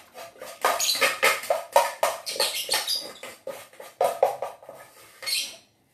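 Dogs eating from bowls: a quick, irregular run of chewing, smacking and licking clicks, with brief higher sounds mixed in.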